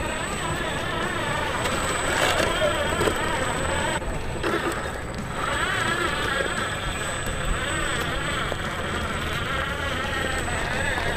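Toy 4×4 off-road RC car's electric motor whining, its pitch wavering up and down with the throttle. The whine drops away briefly about four seconds in, then returns.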